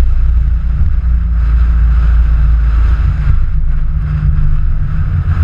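Steady, loud low rumble of wind buffeting the microphone of a moving vehicle, with the vehicle's running noise underneath.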